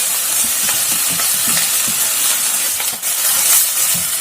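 Crushed onion, ginger, garlic and green chilli frying in coconut oil in a pan: a steady sizzle.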